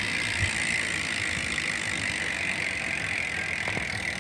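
Bicycle rear wheel spinning freely, its freewheel ratchet giving a steady, fast clicking buzz.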